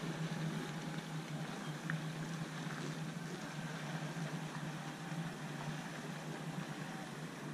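Jet ski and small boat engines running out on the water, a steady drone.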